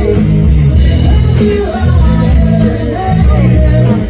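Loud music with bass, guitar and some singing.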